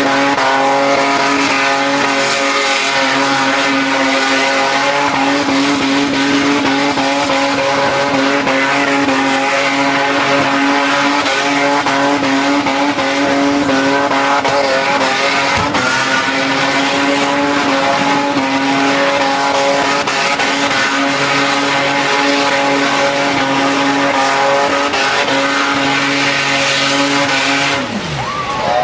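Ford Falcon XR6's straight-six held at steady high revs through a burnout, rear tyres spinning and squealing; near the end the revs fall away as the engine is let off. The engine is running hot: with its cooling fans left off, the radiator pops and steam vents from the front.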